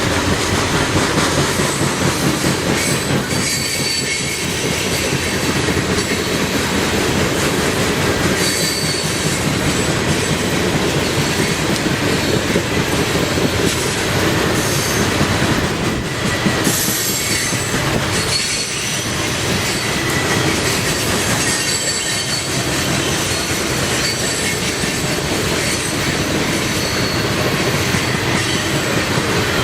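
A coal train's cars rolling past on steel wheels, with a steady rumble, rhythmic clickety-clack over rail joints, and high wheel squeal that comes and goes.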